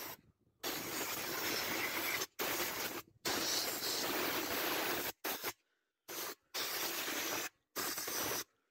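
Old Soviet compressed-air blow gun hissing in about seven blasts, some under a second and some nearly two seconds long, each starting and stopping sharply, as it blows dust out of a welding machine's open case.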